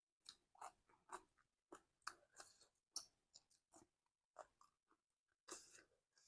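Faint eating sounds: chewing and crisp crunching of papaya salad and raw vegetables, in about a dozen short, irregular bites.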